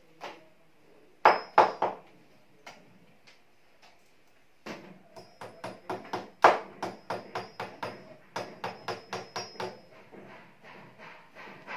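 A hammer tapping a small fastener into a wall: three quick blows about a second in, then a run of rapid blows, about four a second, for some five seconds with a brief break. Many blows carry a short metallic ring.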